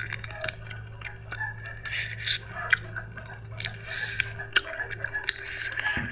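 Close-up eating sounds: a person chewing with many small wet mouth clicks and smacks, over a steady low hum.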